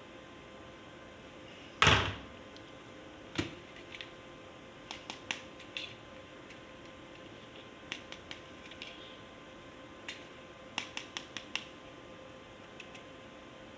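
Handling of plastic toys and packaging: one sharp knock about two seconds in, then a lighter knock and a scatter of small clicks and taps, some in quick runs of three or four.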